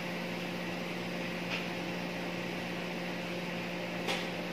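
Steady hum of running kitchen machinery, an even drone with a low tone. Two faint soft clicks sound over it, one about a second and a half in and one near the end.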